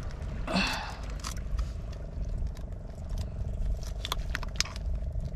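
Small clicks and scrapes of hands working a deep-set fishhook and line out of a grouper's mouth, with a brief louder scrape about half a second in, over a low steady rumble.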